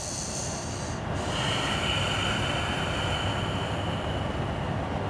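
Slow, audible breathing of a woman holding the downward-dog yoga pose: one long, steady breath beginning about a second in and stopping just before the end.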